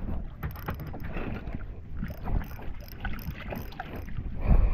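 Water slapping and lapping against a small wooden outrigger boat, with wind rumbling on the microphone and scattered small knocks. A loud low thump about four and a half seconds in.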